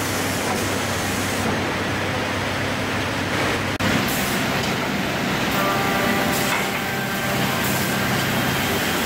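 Steady running noise of an industrial woodworking line: a push-feed optimizing crosscut saw, a transfer conveyor and a moulder, over a constant low hum. The sound drops out for an instant about four seconds in. About halfway through, a high steady whine joins in.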